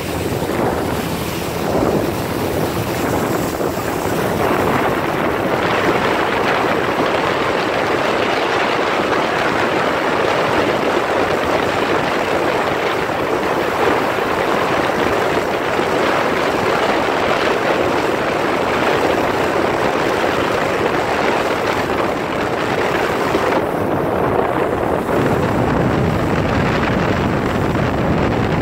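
Steady rush of wind on the microphone and churning wake water behind a motorboat running at towing speed.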